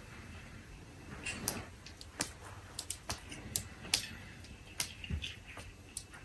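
About ten light, irregular clicks and taps over soft rustling, starting about a second and a half in.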